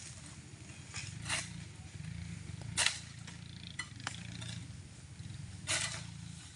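Short rasping strokes of a long-pole harvesting sickle cutting at an oil palm frond high in the crown, three louder ones at uneven intervals, over a steady low rumble.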